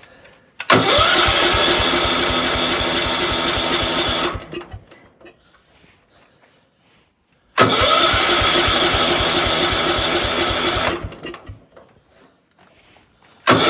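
Gravely Commercial 10A's electric starter cranking the cold engine in two bursts of a few seconds each, with a steady starter whine and even beats of the engine turning over. The engine does not fire, for lack of spark.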